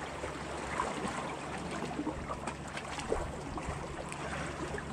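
Small waves lapping and splashing against the rock boulders of a breakwall.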